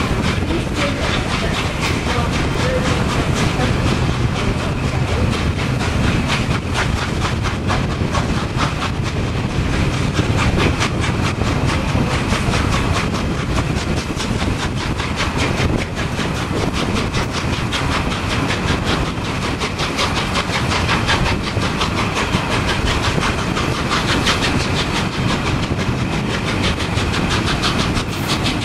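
Steam locomotive 60163 Tornado, a three-cylinder Peppercorn A1 Pacific, working hard as it pulls its train away. Its exhaust gives a rapid, steady beat over a heavy rumble, heard from a carriage window, with the coaches' wheels clattering over the track.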